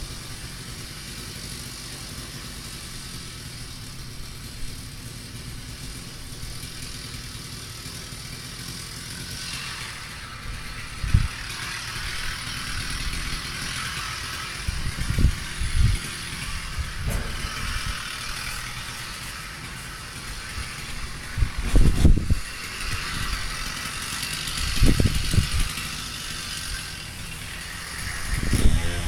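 Small engine idling steadily, with several heavy thumps and knocks in the second half.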